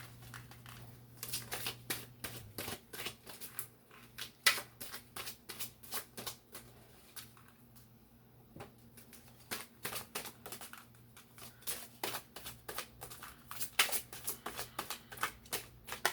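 A deck of reading cards shuffled by hand: a run of quick, irregular riffling clicks, with a short lull about halfway through.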